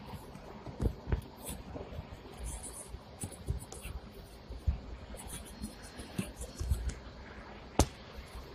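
Inside a Hong Kong tram rolling slowly: scattered knocks, clicks and rattles from the car body and fittings over a low running rumble, with one sharp click near the end.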